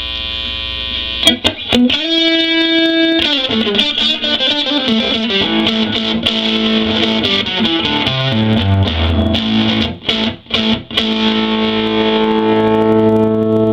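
A 1983 Fender Stratocaster on its neck pickup, played through a 1956 Fender Princeton tweed tube amp turned all the way up and breaking up into overdrive. Amp hum is heard first. Then comes a held note, single-note runs and chords, a couple of brief stops near the end, and a sustained chord.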